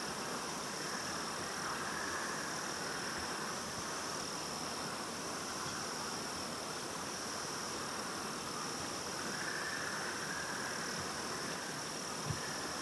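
Insects trilling outdoors: a steady high-pitched trill, with a lower chorus that swells and fades every few seconds, over an even hiss.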